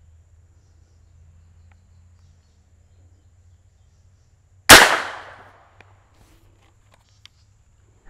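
A single .22 LR rifle shot from a Smith & Wesson M&P 15-22 with a 16-inch barrel, a sharp crack about four and a half seconds in whose echo dies away over about a second.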